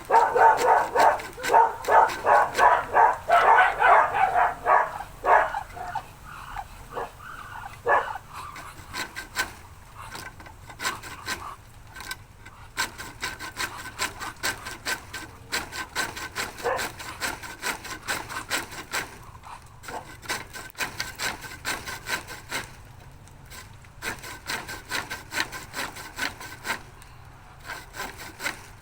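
Rapid back-and-forth hand-sawing strokes, loud for about the first five seconds, then fainter and more scattered.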